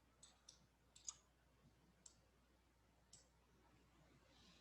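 Faint, scattered clicks of a computer mouse, about six at uneven intervals, most of them in the first second.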